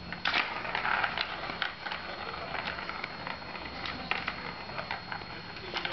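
A plastic ball rolling and rattling in a cat play-circuit track as kittens bat at it: a run of light clicks and knocks, densest about a second in, then scattered.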